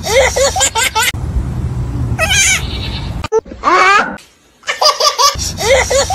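A baby laughing in bursts, mixed with an animal's calls; the sound drops out briefly a little past the middle.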